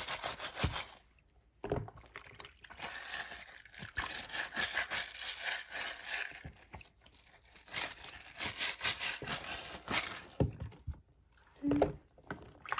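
Fidget toys being scrubbed clean: uneven strokes of scratchy rubbing, pausing briefly about a second in and again near the end.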